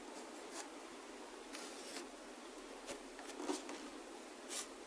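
Pencil tracing a pattern onto a wooden doubler: a few faint scratchy strokes, one longer stroke about one and a half seconds in.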